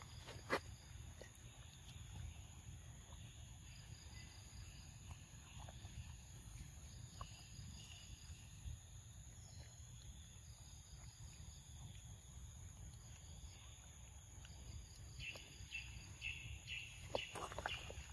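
Quiet forest ambience: a steady high-pitched insect drone over a low rumble, with a few faint clicks and a short run of chirps near the end.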